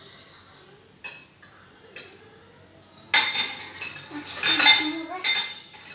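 Cutlery clinking against dishes: two light clinks, then a louder run of clattering and ringing clinks from about three seconds in.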